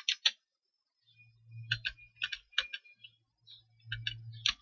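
Computer keyboard typing: an uneven string of separate key clicks with short pauses between them. A faint low hum runs under some of the keystrokes.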